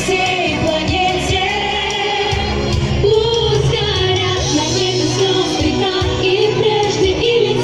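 Female voices singing a Russian pop song over a recorded backing track, holding long notes.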